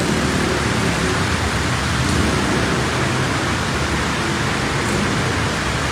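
Steady rushing of water as cars plough through deep floodwater on a city street, with a low hum of traffic beneath it.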